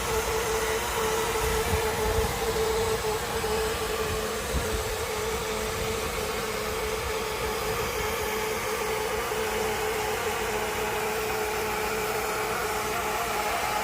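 Hitachi 20-horsepower air conditioner running: a steady machine hum with one strong constant tone over an even fan-like rush.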